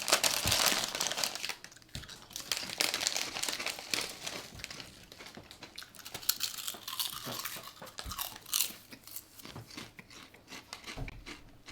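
Crisp packet crinkling, with crisps crunching: a dense run of crackles for about the first second and a half, then scattered crackles.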